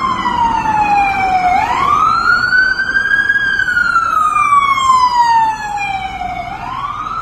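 Emergency vehicle siren wailing: its tone falls slowly, sweeps quickly back up and falls again, about two cycles, over street noise. It gets somewhat quieter about five and a half seconds in.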